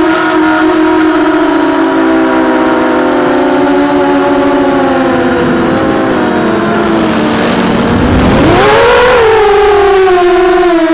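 EMAX RS2206 2300KV brushless motor spinning a propeller in flight, giving a loud whine that sags slowly in pitch. About eight and a half seconds in the pitch dips, then rises sharply with a brief rush of noise, and then eases off again.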